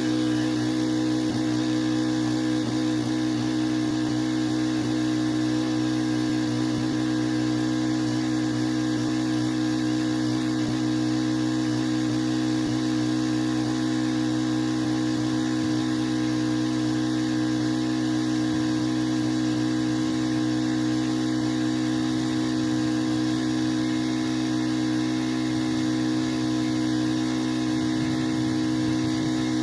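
Pressure washer engine running at a steady speed, with a steady hiss over it.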